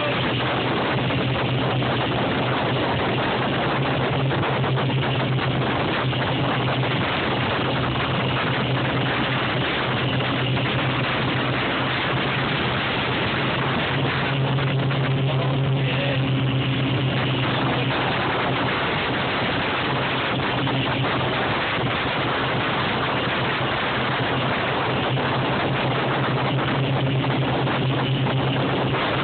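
Motorboat engine running steadily as a continuous low drone, with a constant rushing noise over it.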